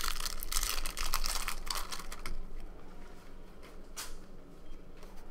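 Foil wrapper of a trading-card pack being torn open and crinkled. Dense crackling for the first two and a half seconds gives way to quieter rustling and ticks as the cards are slid out and handled.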